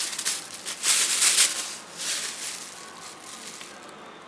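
Bubble-wrap packaging crinkling and rustling as hands pull a new engine water pump out of it. The crackle is loudest in the first two seconds, then dies down to softer rustles.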